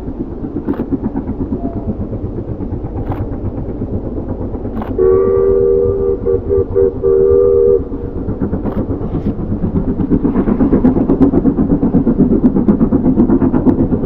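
Steam locomotive working across a viaduct, its exhaust chuffing in an even rhythm. About five seconds in, its whistle sounds a steady two-note chord for a couple of seconds, broken briefly, and the chuffing grows louder near the end.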